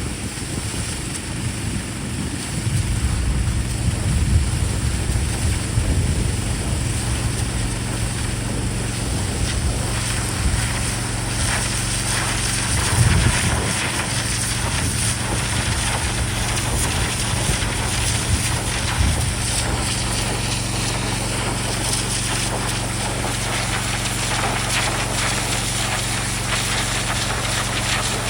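Gas-engine 4200 psi pressure washer running steadily, with the hiss of its zero-tip water jet cutting a trench into the soil. Wind buffets the microphone through roughly the first two thirds.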